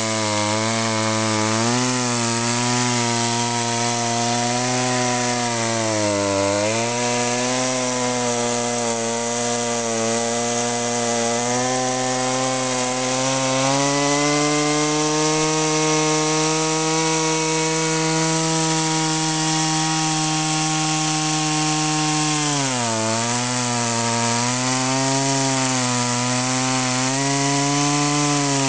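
Gasoline two-stroke chainsaw ripping a log lengthwise in a chainsaw mill, running at high revs under steady load. Its pitch sags briefly as it bogs in the cut, about six seconds in, and again a few times near the end.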